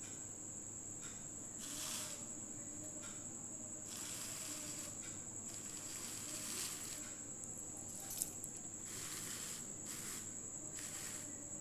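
Faint, soft rustling of handwritten paper sheets being handled and shifted, in several swells, over a steady high-pitched tone.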